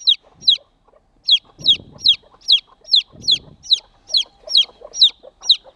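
A baby chick peeping loudly and without pause, about two or three high, downward-sliding peeps a second: the distress calls of a frightened chick.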